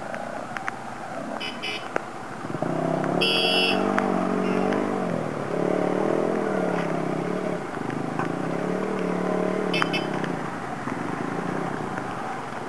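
Motorcycle engine running on a muddy track, its pitch rising and falling with the throttle from about two and a half seconds in until about ten seconds. A few short high beeps come about a second and a half in, around three seconds in and near ten seconds.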